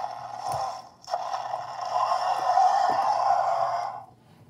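Baryonyx Grim toy's roar, two harsh, rasping growls: a short one ending about a second in, then a louder one about three seconds long, as the toy is worked through its thrashing action.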